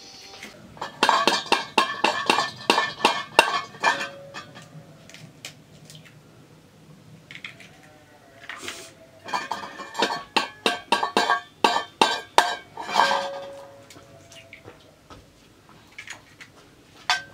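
A metal utensil clinking rapidly against a steel bowl in two runs of about three seconds each, the bowl ringing with each strike, with a few single clinks between and after.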